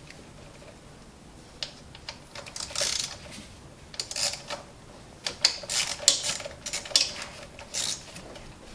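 Irregular clicks and rattles of parts being worked loose on a Ford 3-valve engine: the PCV hose coming off and the coil-on-plug hold-down bolt being taken out. The clicks start about a second and a half in and come in scattered clusters.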